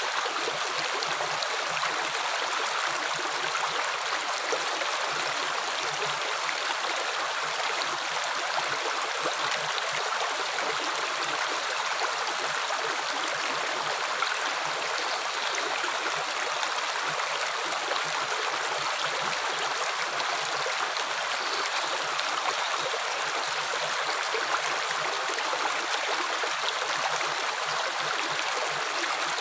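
Water flowing steadily, an even, unbroken rushing noise.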